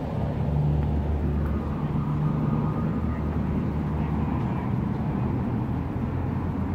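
Steady low hum of an idling vehicle engine, with a haze of street traffic noise.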